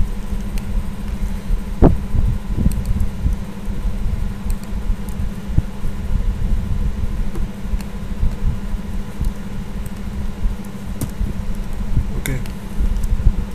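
Steady low rumble of microphone background noise, like a computer fan, with a few faint clicks, the loudest about two seconds in.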